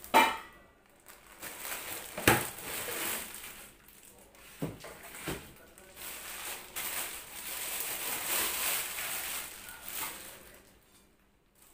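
Clear plastic wrapping rustling and crinkling as a nonstick pan is taken out of its bag. A few sharp knocks of cookware are heard, the loudest at the start and about two seconds in.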